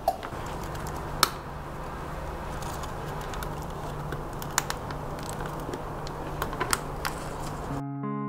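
Scattered light clicks and rustles of a flexible LED strip being handled and pressed against the inside of a plastic bucket, over a low steady hum. Guitar music comes in near the end.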